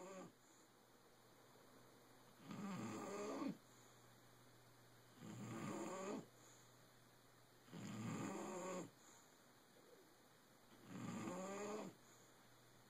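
Snoring: four slow, rasping snores, one about every three seconds, each lasting about a second with quiet breathing between.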